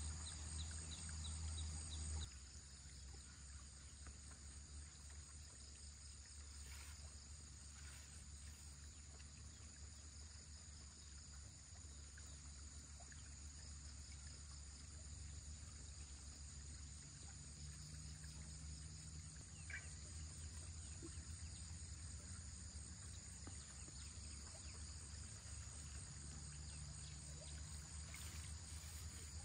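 Faint insects chirring in steady high-pitched lines, pulsing quickly for the first couple of seconds and then running on evenly, over a low rumble.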